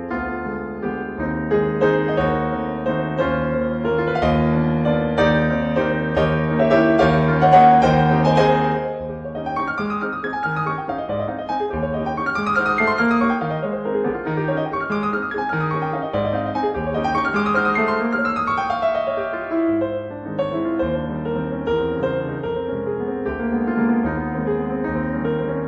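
Background piano music: a slow instrumental piece of sustained, overlapping notes.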